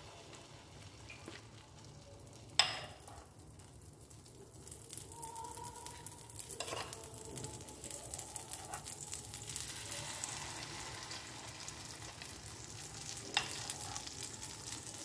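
Oats pancake batter sizzling faintly in ghee on a hot nonstick tawa as ladlefuls are poured, the sizzle growing louder after about five seconds. A sharp tap of the steel ladle on the pan comes about two and a half seconds in, with lighter taps around the middle and near the end.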